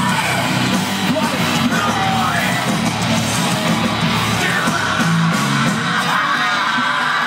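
Live rock band playing loud through a PA, with electric guitar and shouted vocals, heard from amid the crowd in front of the stage.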